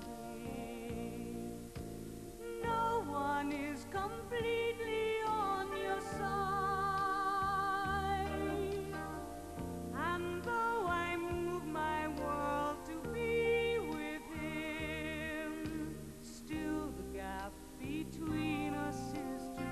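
A woman singing a slow pop ballad over instrumental accompaniment, with vibrato on the held notes.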